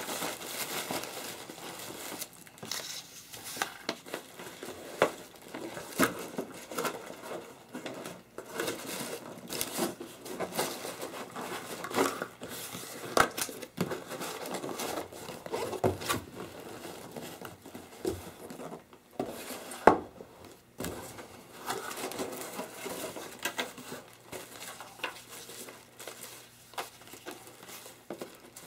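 Plastic packaging crinkling and cardboard boxes being handled during unboxing, with irregular rustling and scattered knocks and clicks; the sharpest knock comes about twenty seconds in.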